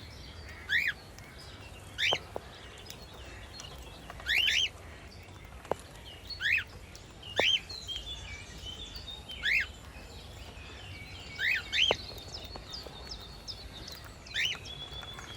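Cockatiel giving short chirping calls, each a quick sweep in pitch, about every one to two seconds, over fainter, softer twittering.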